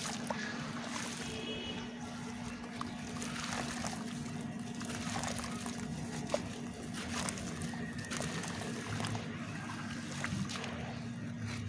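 Chunks of dry red dirt crumbling in water, with many small crackles and trickling, over a steady low hum.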